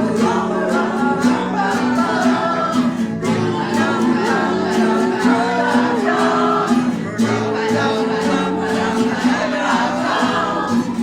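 A group of voices singing a playful song together and improvising vocal sound effects over a steady held low note, with many short sharp clicks or taps running through it.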